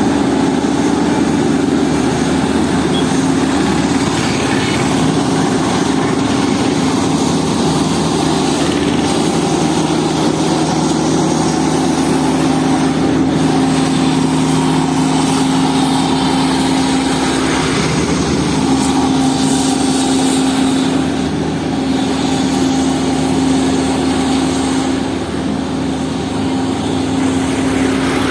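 Diesel engine of a road-construction machine, such as a road roller, running steadily with a constant hum and no revving.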